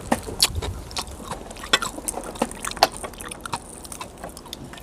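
Close-up crunching and chewing of crispy pata, the deep-fried pork knuckle skin, with irregular sharp crunches a few times a second.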